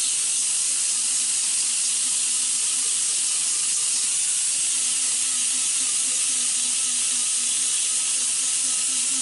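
Small grinder with an abrasive pad running steadily against a metal transmission valve body plate, sanding off old bonded gasket material: a steady hiss with a faint wavering whine.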